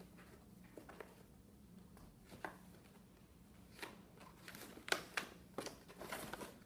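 Faint, scattered clicks and rustles of the Nerf blaster being worked free of its box packaging and ties, growing busier about halfway through, over a low steady hum.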